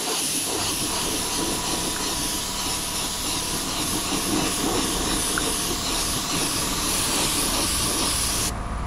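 A gravity-feed mini spray gun hisses steadily as compressed air atomises a coat of 2K lacquer. The hiss cuts off sharply shortly before the end.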